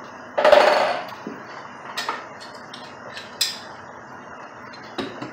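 Metal tools clinking and clanking against copper pipe fittings while they are worked with pliers: a louder clatter about half a second in, then a few short sharp clicks.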